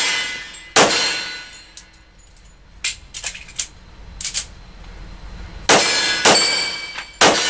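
Pistol shots cracking in a closed range room, each trailed by a metallic ring. One loud shot comes about a second in, then lighter clicks and clanks, then three shots in quick succession near the end.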